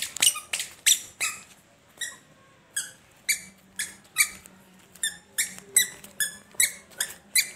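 A toddler's squeaky sandals squeak with each step as he walks on concrete: short, high squeaks, about two to three a second, with a few brief gaps.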